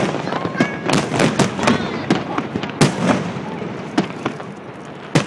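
A starmine fireworks barrage: aerial shells bursting in a rapid, irregular string of sharp bangs and crackles, several a second, with a few louder bangs about three seconds in and near the end.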